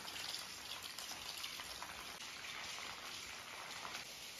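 Steady light rain falling on wet concrete and puddles, an even hiss of many small drops.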